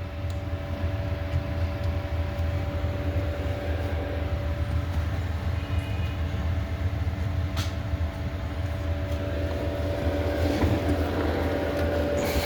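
Audi A4 engine idling with a steady hum, a little stronger near the end, while the steering is worked; no creak comes from the steering cross-joint, which has just been sprayed with WD-40.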